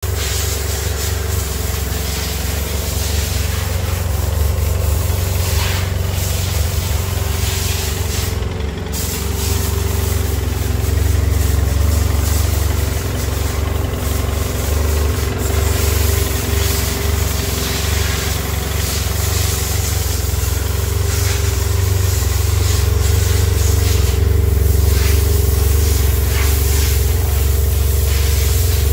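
BMW F800ST's 798 cc parallel-twin engine idling steadily.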